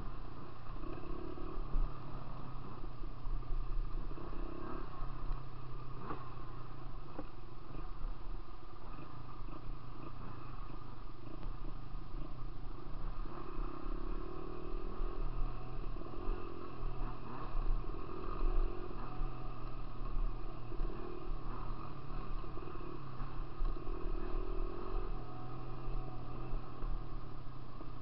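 Dirt bike engine running at low trail speed, its pitch rising and falling as the throttle opens and eases off, with an occasional knock from the rough trail.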